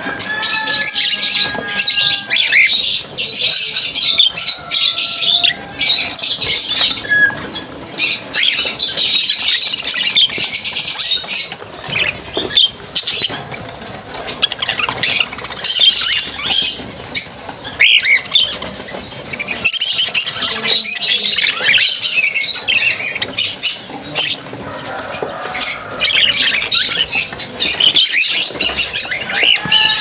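A flock of caged budgerigars chattering and warbling in dense stretches of high chirps, with quieter lulls between, and wings fluttering now and then.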